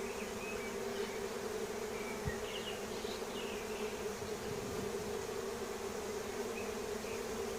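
Honeybees buzzing around an opened hive: a steady, even hum.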